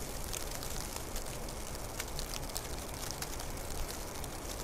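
Snowfall outdoors: a steady low rumble with many light, irregular ticks of falling snow, several a second.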